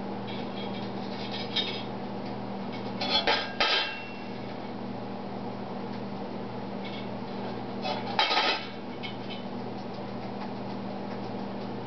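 A lovebird pecking at a stainless steel saucepan and its lid with its beak, making metallic banging: two quick flurries of clanks, one about three seconds in and one about eight seconds in, with lighter taps between.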